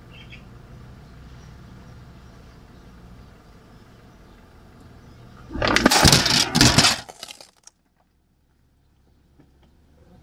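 A car engine idling with a steady low hum. About five and a half seconds in, a loud crunching and cracking lasts about two seconds as something is crushed under the car's wheel.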